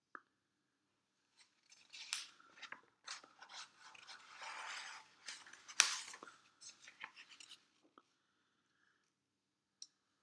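Sheets of hole-punched paper being handled and turned over, a run of crackling and rustling with a sharp crinkle about six seconds in.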